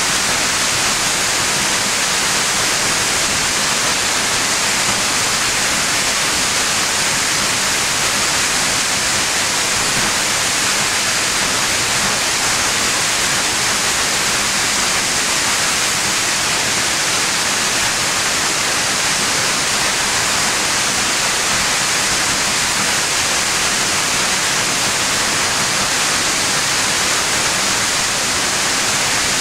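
Steady rush of water from a tall waterfall, a 177-foot plunge, heard as a constant hiss-like roar with no change in level.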